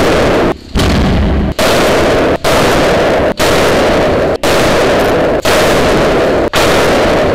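StrikeArt RGS airsoft pyrotechnic grenades going off in quick succession, about one blast a second, around eight in all. Each blast overloads the recording and rings on in the big hall until the next one.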